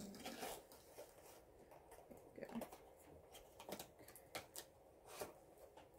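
Faint rustling with a few scattered light clicks and taps: hands handling the parts and packaging of a diamond painting kit.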